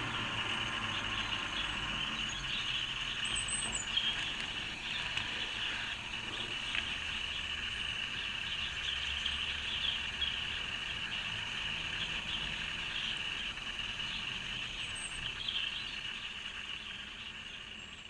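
Outdoor garden ambience: a steady high-pitched chorus-like hiss and a low distant rumble, with two brief high bird chirps, one about three and a half seconds in and one near the end. The sound fades out at the very end.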